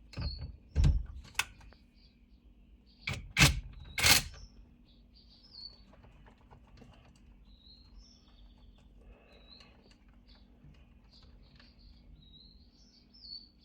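A handful of sharp clicks and knocks in the first four seconds, then quieter work with faint, repeated bird chirps in the background over a low steady hum.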